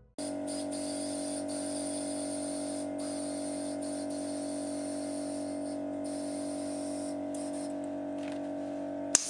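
Compressed air hissing steadily from a workshop inflator gun into a tubeless bicycle tyre through its valve, over a steady machine hum. A sharp click near the end.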